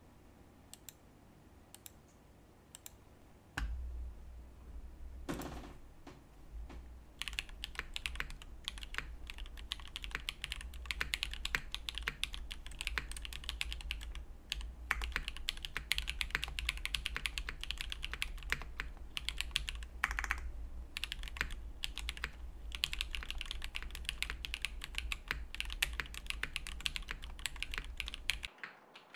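Typing on an Iron 165 custom mechanical keyboard with a polycarbonate and brass case, aluminium plate, Zaku switches lubed with 205g0, and GMK Rouge keycaps. A few single keystrokes come first, then fast continuous typing from about seven seconds in. A steady low hum sits beneath from about four seconds in until just before the end.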